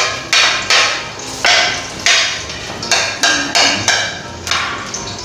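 Metal spatula clanking and scraping against a metal wok as garlic is sautéed in oil, about two strokes a second, each stroke ringing briefly.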